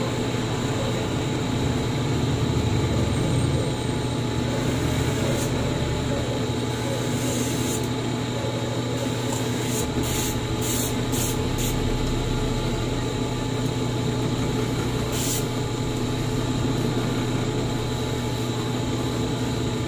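Electric motor spinning a sharpening disc with a steady hum, while a scissor blade is pressed against the disc in short grinding strokes, most of them bunched about ten to twelve seconds in.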